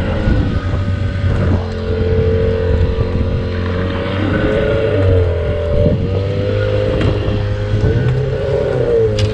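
A fishing boat's engine running steadily while trolling, its pitch wavering up and down a little twice.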